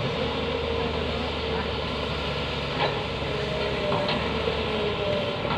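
Heavy diesel machinery, Tata Hitachi excavators loading a Volvo 460 mining tipper, running steadily with a low hum and a faint wavering whine. There are two short knocks, about three and four seconds in.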